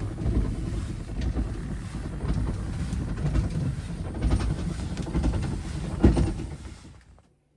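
Low, uneven rumbling and rattling noise that cuts off abruptly near the end.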